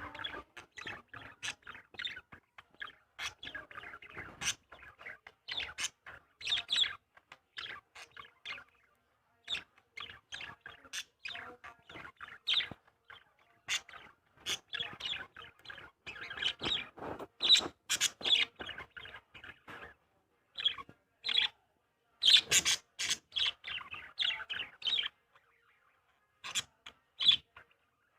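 Small birds chirping in quick, short, sharp calls, one after another, with a couple of brief pauses.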